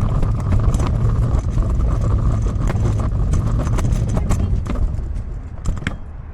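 Pull wagon's wheels rolling over pavement: a steady low rumble with scattered rattling clicks and knocks, easing off about five seconds in.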